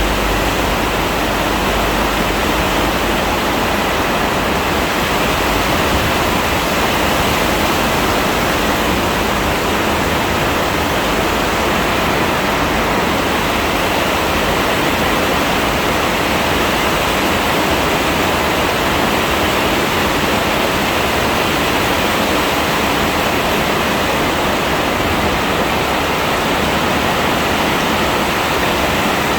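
Heavy rain pouring down steadily, a loud, dense, even hiss. A low rumble underneath fades out in the first few seconds.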